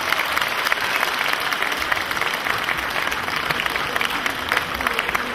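Audience applauding, dense steady clapping after the music has ended.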